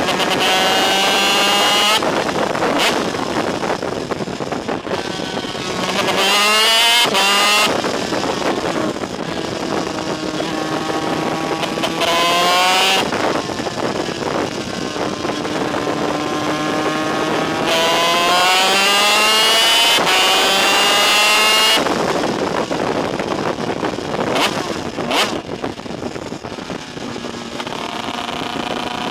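Onboard sound of a superkart's DEA 250cc two-stroke engine at racing speed, its pitch climbing hard several times and dropping off sharply between climbs as the kart shifts and lifts for corners.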